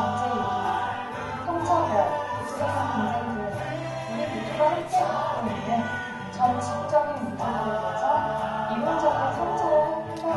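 Music with singing voices over a steady bass line.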